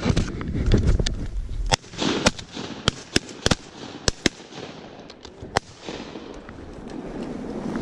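A rapid string of shotgun blasts from two hunters firing at incoming ducks, starting about two seconds in and ending by about six seconds; the shots bring down two ducks.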